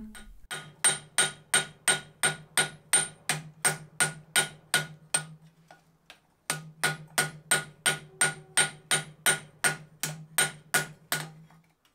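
Hand hammer striking a red-hot Damascus steel tanto blade on an anvil at about three blows a second, the anvil ringing on between blows; the hammering stops for about a second near the middle, then resumes. This is the fine finish-forging of the blade.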